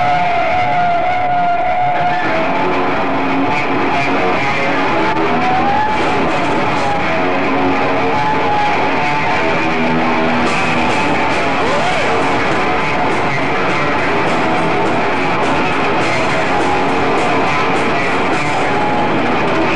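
Live rock band playing loud, with an electric guitar lead of long notes that bend and waver in pitch over the band.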